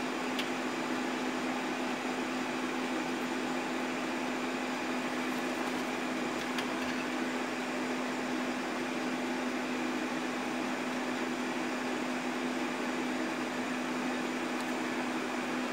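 Air fryer running: its fan gives a steady whir with a constant low hum.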